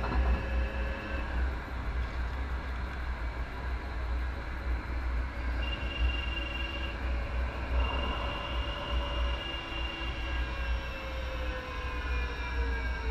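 MAX light rail train running along the track: a steady low rumble with several faint whining tones above it that drift slightly down in pitch near the end.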